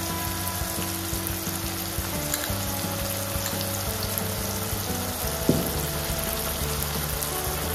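Onion and tomato masala sizzling steadily in a nonstick kadai just after soy sauce is added, with a spoon stirring through it.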